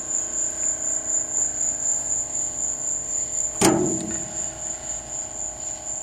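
Crickets chirping in a steady, high, pulsing trill over a steady low hum. A single sharp knock comes about three and a half seconds in.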